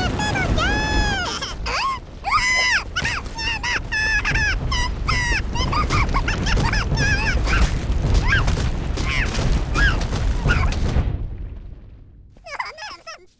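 Cartoon clay characters babbling in high, squeaky nonsense voices: quick chattering calls that swoop up and down, over a steady low rumble. Both fade out about two seconds before the end.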